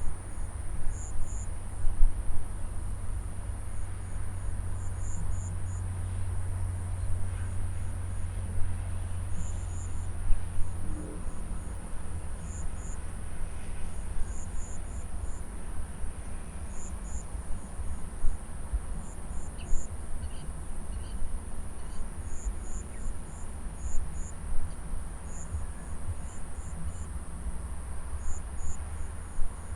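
Insects in a harvested paddy field: a steady high-pitched drone with short chirps in clusters of two to four every second or two, over a low rumble.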